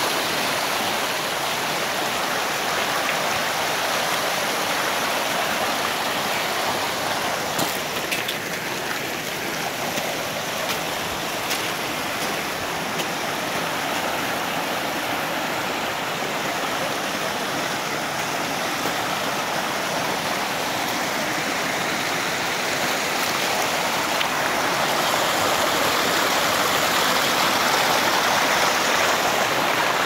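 Mountain creek running fast over rocks: a steady rush of water, a little louder near the end.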